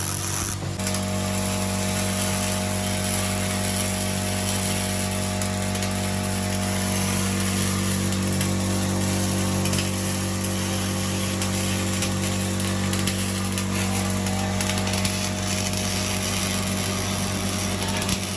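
MIG welding arc burning continuously: a steady crackling hiss over the constant electrical hum of the welding machine.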